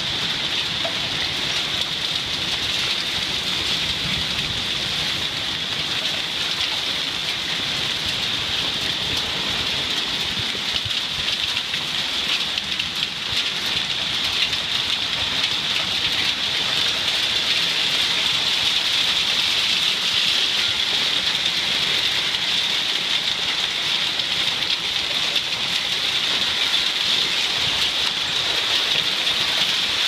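Heavy, wind-driven rain pouring down in a severe thunderstorm: a dense, steady hiss that grows somewhat louder about halfway through.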